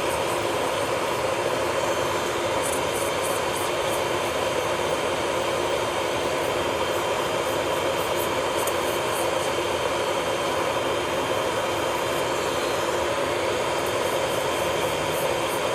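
Electric nail drill (e-file) running at a steady speed, a constant whirring hum with faint light ticks.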